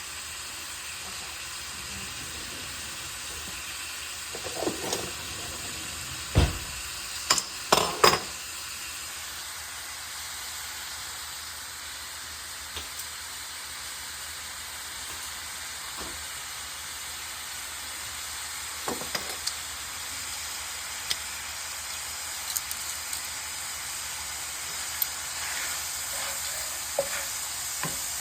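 Carne picada beef with peppers and onions sizzling steadily in a frying pan. A utensil stirring it knocks and scrapes now and then, most sharply about six to eight seconds in.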